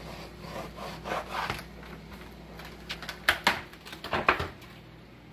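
Clear plastic wrap crinkling as it is handled and smoothed over raw chicken breasts, with a few sharp crackles about three and four seconds in.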